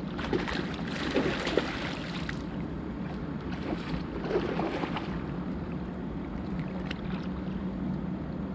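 Water splashing in two bouts as a hooked flathead catfish thrashes close beside a boat during the fight, over a steady low hum.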